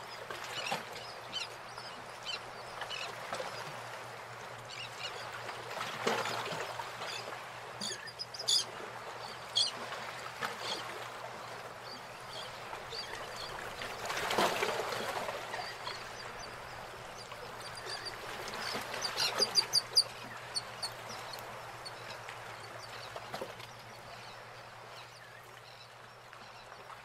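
Birds calling, with a few quick runs of high chirps, over a steady rushing noise.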